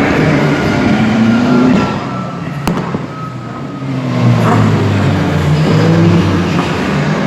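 Race car engines at high revs as cars pass at speed, the engine note rising through the gears. It eases off about two seconds in, then a second car builds up again about four seconds in. There is one sharp click partway through.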